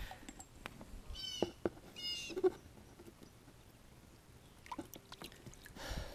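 Two short, high squeaky animal calls, about a second in and again a second later, over faint splashing of water as a bass is released by hand over the side of the boat.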